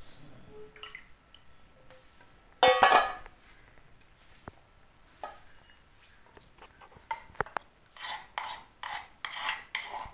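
Steel kitchen vessels clattering: one loud clank a few seconds in, then a string of shorter clinks and scrapes near the end.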